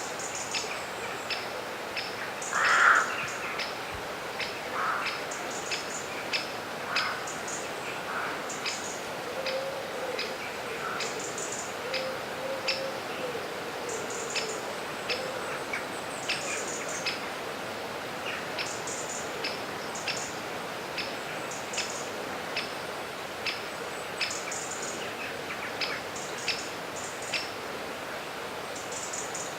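Birds chirping in quick, short notes, about once or twice a second, over a steady rush of flowing river water, with a louder call about three seconds in.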